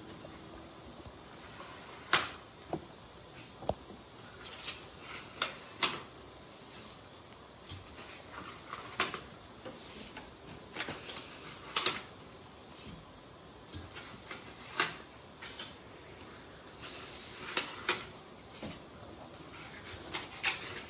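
Paper sticky notes being peeled off and handled on a poster board: irregular short rustles, peels and light taps every second or two.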